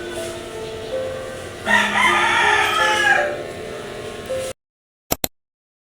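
A rooster crowing once, a loud call of about a second and a half starting near two seconds in, over soft background music. The music cuts off suddenly, followed by two short clicks.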